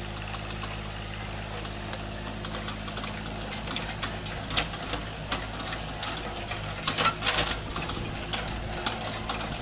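Backhoe's diesel engine running steadily, with scattered metallic clicks and clanks that grow more frequent in the second half as the engine sound fades.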